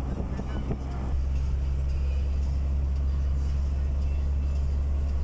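Steady low road rumble and tyre noise of a moving vehicle on a highway, heard from inside the cabin; it grows louder about a second in and then holds steady.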